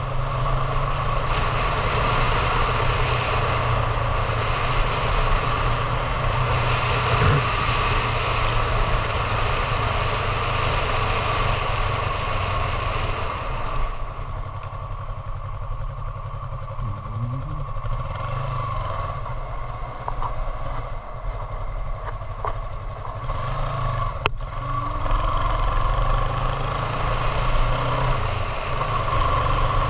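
Motorcycle engine running steadily under way, with a rush of noise over it. About halfway through the engine drops back and its pitch slides up and down, then it pulls harder again near the end; a single sharp click sounds in between.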